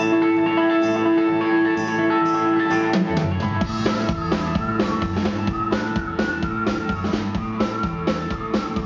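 Live rock band: an electric guitar plays alone, then about three seconds in the bass guitar and drum kit come in together with a steady beat.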